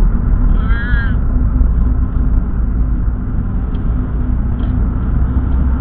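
Steady low rumble of a car's engine and road noise heard from inside the cabin while driving, with a short high chirp about a second in.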